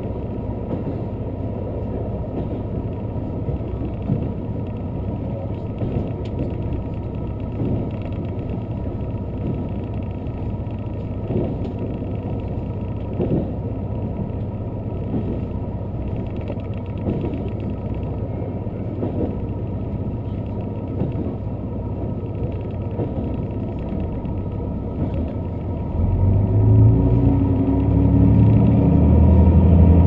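Inside a diesel express railcar running along the line: a steady rumble of wheels and running gear, with clacks from rail joints every couple of seconds. About 26 s in, the diesel engine's note rises sharply and keeps growing louder as the train powers up.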